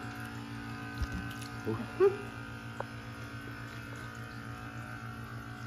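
Steady electric hum of a small pump motor, with a short murmur from a man's voice about two seconds in and a faint knock about a second in.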